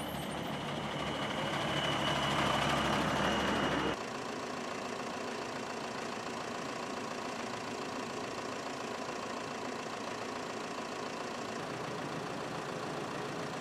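Fire engine's engine running as it rolls slowly past, with a thin steady high tone over it, cutting off abruptly about four seconds in. A quieter steady hum follows.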